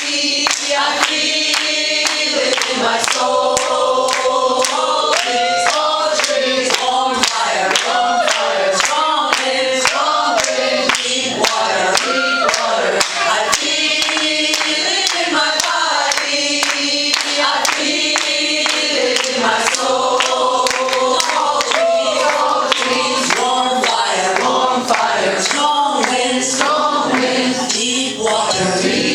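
A woman singing a chant-like healing song into a microphone, with other voices singing along, while steady clapping keeps time about twice a second.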